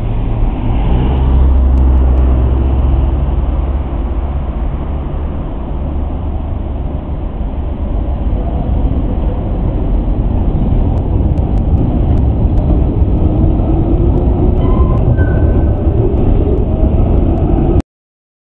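Green Basel street trams with trailers passing close, a steady low rumble of wheels on rails with a faint rising whine partway through and a few brief high squeaks. The sound cuts off abruptly near the end.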